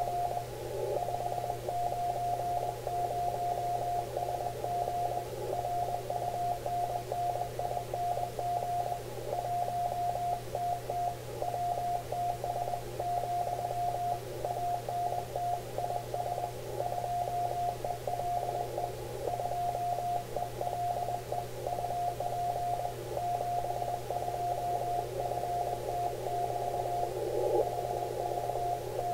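Morse code (CW) received on the 40 m band through an Icom IC-7300: a single tone of about 700 Hz keyed on and off in dots and dashes at about 20 words per minute. It sits over band hiss narrowed by a 500 Hz filter, with a steady low hum beneath.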